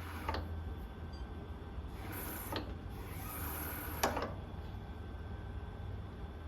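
Nippi NP-2 machine running with a steady low hum, with a few short rasping noises and a sharp click about four seconds in.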